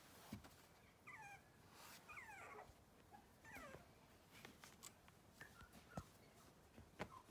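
Four-week-old Cavoodle puppies whimpering faintly: three short, high squeals that slide down in pitch in the first few seconds, then a few soft knocks.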